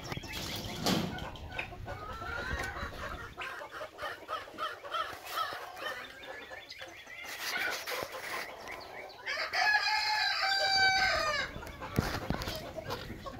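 Backyard chickens clucking repeatedly, with one longer crow from a rooster about ten seconds in.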